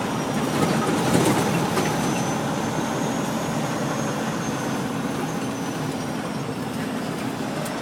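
An empty semi-truck with B-train trailers driving a rough gravel haul road: a steady engine and road rumble with rattling, and a few sharp knocks about a second in. A faint high whine rises and falls through the middle.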